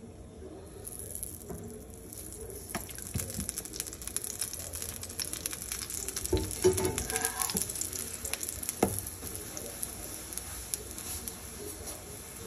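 A chapati sizzling in oil in a hot frying pan, with a fine steady crackle. About halfway through, a metal spatula knocks and scrapes in the pan as it presses and turns the chapati, and there is one sharp click a little later.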